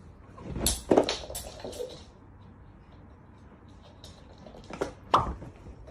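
A few knocks and clattering thuds: a cluster about a second in, then two more near the end.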